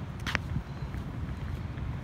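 Footsteps on a concrete sidewalk over a steady rumble of wind on the microphone, with one sharp click about a third of a second in.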